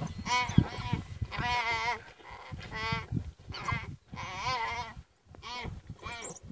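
A young antelope bleating in distress in repeated wavering calls, each about half a second long, as African wild dogs tear at it.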